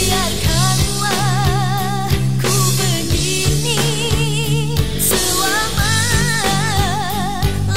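Indonesian pop song playing: a melody line with wide vibrato over a steady drum beat and bass.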